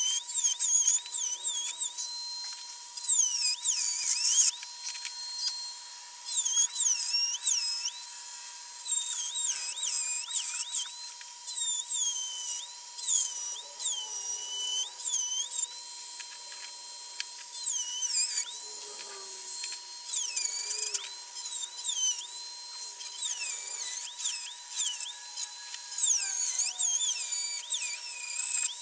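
Craftsman rotary tool with a carbide pine-tree burr grinding into a cast iron lathe tailstock, opening up a crack. Its high-pitched whine dips in pitch each time the burr bites into the iron and climbs back as it eases off, over and over, with short pauses between passes.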